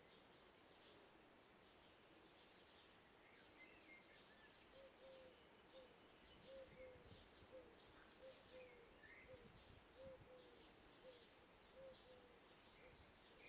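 Faint forest birdsong: several small birds give scattered high chirps and short trills, while a lower-voiced bird repeats a short, soft note about every half second from about a third of the way in until near the end.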